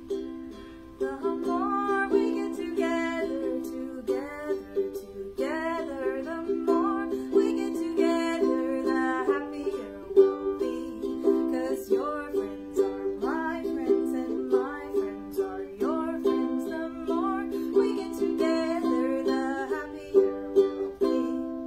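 Ukulele strummed in steady chords, with a woman singing a melody over it in phrases.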